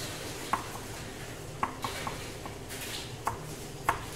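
Kitchen knife chopping carrots on a cutting board: about seven irregular, sharp taps of the blade striking the board, over a steady low hum.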